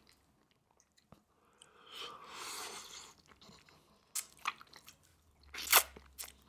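Close-miked eating of a jumbo prawn in Cajun sauce: a soft wet smacking about two seconds in, then a run of sharp bites and crunches, the loudest a little before the end.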